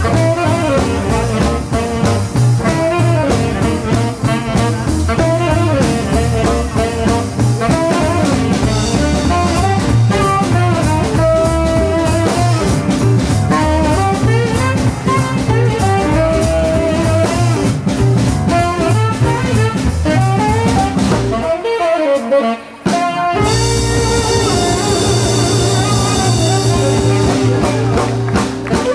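Live band playing an upbeat rhythm-and-blues shuffle instrumental: tenor saxophone lead over slapped upright bass, electric guitar and drum kit. About 22 seconds in the band stops for a beat, then comes straight back in.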